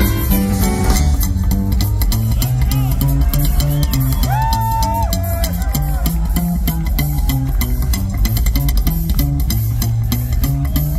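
Live rockabilly band playing an instrumental passage: an upright double bass walks a stepping line under drums and guitars. About four seconds in, the electric guitar plays a few held, bent lead notes.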